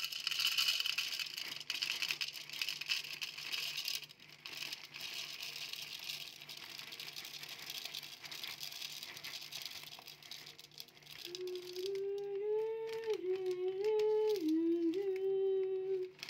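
Dry whole black peppercorns rattling as they are handled and poured. From about eleven seconds in, a woman hums a tune in long held notes that step up and down.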